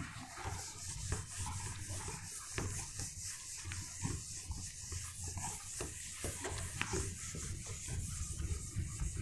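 Whiteboard duster rubbing across a marker whiteboard in repeated, irregular wiping strokes.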